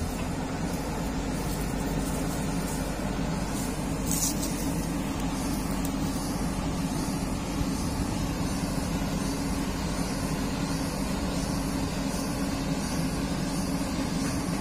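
Komatsu PC200-8 hydraulic excavator's diesel engine speeding up and then running steadily at working revs. A short hiss about four seconds in.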